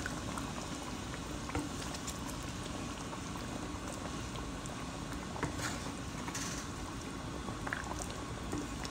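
Chicken in tomato sauce simmering in a frying pan: a steady bubbling with many small scattered pops as the sauce, thinned with water, comes to the boil.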